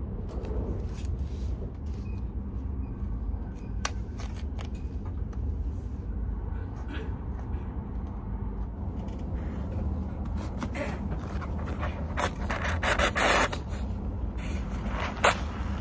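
Scraping, rubbing and clicking from handling a self-heating bento box and pulling out its heating string, with a louder scraping rush about twelve seconds in. The Shinkansen's steady low rumble runs underneath.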